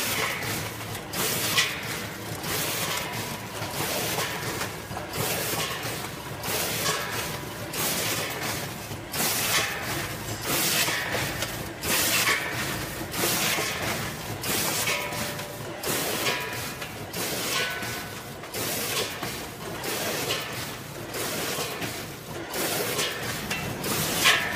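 Vertical form-fill-seal granule packing machine running, with a short noisy burst repeating in a steady rhythm roughly once a second over a continuous mechanical background.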